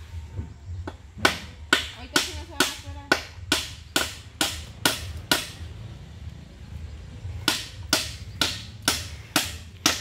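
Hammer striking a nail into a wooden board: steady blows about two a second, ten in a row, then a pause of about two seconds, then six more.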